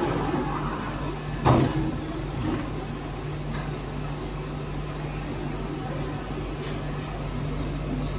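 Hydraulic embossing press running with a steady hum, with one sharp clunk about a second and a half in.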